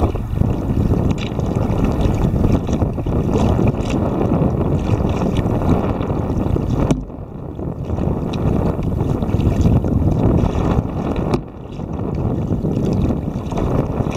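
Strong wind buffeting the microphone of a camera mounted on a kayak's bow, a loud low rumble that eases briefly twice.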